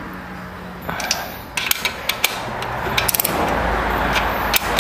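Torque wrench clicking on cylinder head bolts: separate sharp metal clicks about a second in and near the middle, a quick run of ratchet clicks about three seconds in, and another click near the end, with handling noise underneath.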